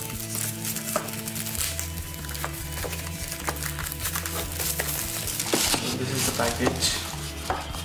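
Plastic shrink wrap crinkling and rustling as it is peeled off a tablet's cardboard box, with scattered clicks, louder in the second half. Background music with low steady notes plays underneath.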